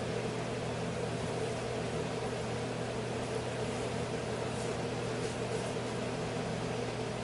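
Steady mechanical hum with an even hiss of moving air, unchanging throughout: a machine such as a fan or heating unit running in the room.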